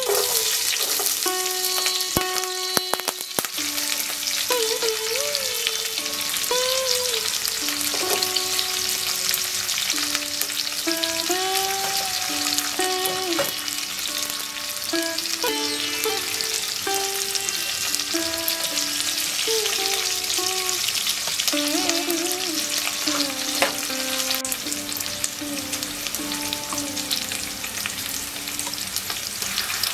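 Hot coconut oil sizzling steadily in a pot as mustard and fenugreek seeds fry, then sliced shallots, green chillies and curry leaves sauté in it.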